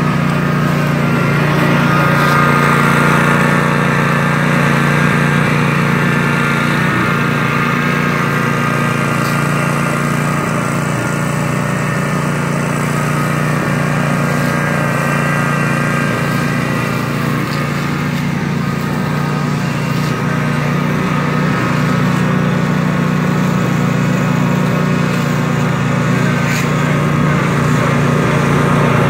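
Cub Cadet zero-turn riding mower's engine running steadily while mowing tall grass. It fades slightly as the mower moves away and grows louder again near the end as it comes back.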